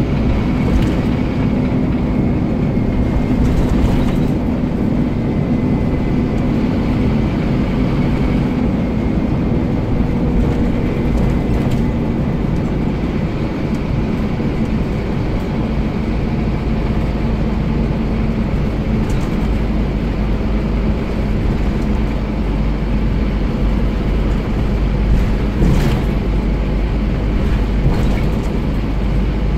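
Scania CN230UB bus heard from inside the saloon while under way: the diesel engine runs steadily over road noise, its note shifting slightly with speed. A faint high whine fades out after the first dozen seconds, and a few short knocks or rattles come through, loudest around 26 seconds in.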